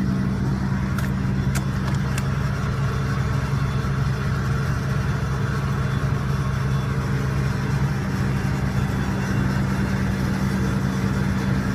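Heavy logging machine's engine idling steadily, a constant low hum, with a few light clicks about one to two seconds in.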